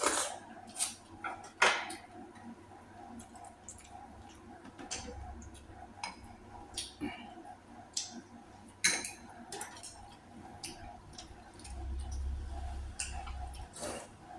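Utensils clinking and tapping against bowls and plates while eating, in a series of irregular sharp clicks, with a low rumble about five seconds in and again near the end.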